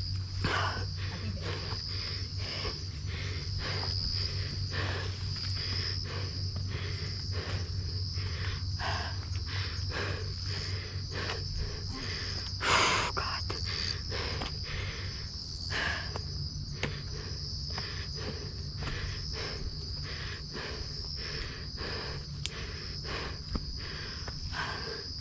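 Steady night chorus of insects at one high pitch, with regular footsteps on a dirt forest trail, about one and a half to two steps a second. A single louder thump or scuff comes about 13 seconds in.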